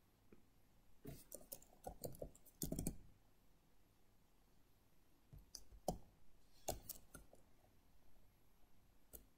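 Faint clicking of computer keyboard keys being typed, in two short runs of keystrokes: one about a second in and another around five to seven seconds in.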